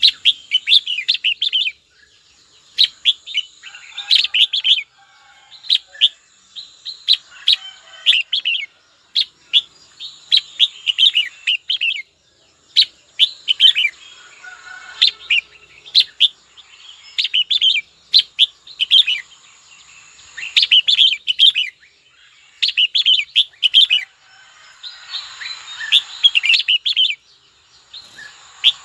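Red-whiskered bulbul singing: bursts of quick, bright chirping phrases about a second long, repeating with short pauses between them.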